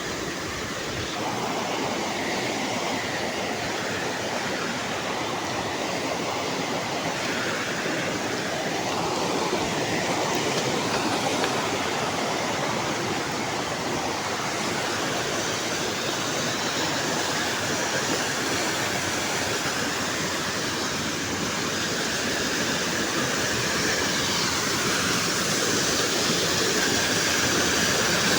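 Waterfall: a steady rush of falling water, a big noise, growing a little louder toward the end.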